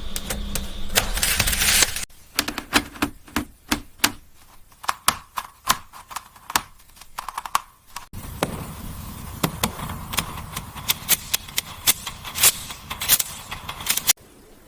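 Sharp, irregular clicks and taps, like small hard parts being handled or worked. They come alone for a while, then over a steady running noise; the sound changes abruptly three times, about two, eight and fourteen seconds in.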